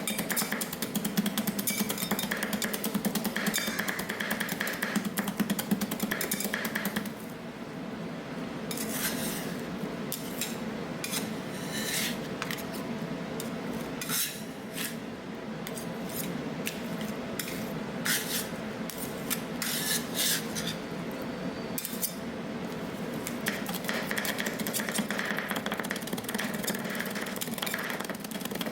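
Metal spatulas chopping, tapping and scraping on the steel cold plate of a rolled-ice-cream station, over a steady low hum. The chopping is rapid for the first seven seconds or so, turns to sparser strikes and scrapes, then grows dense again near the end.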